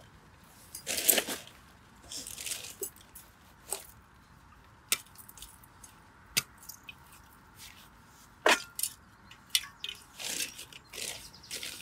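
Rustling of a canvas canteen cover with sharp clicks and clinks as a canteen and its metal cup are handled and the cup is pulled out of the cover, in scattered bursts with short quiet gaps between.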